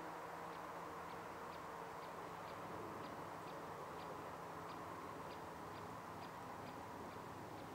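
Faint, regular ticking, about two ticks a second, over a steady low background hum.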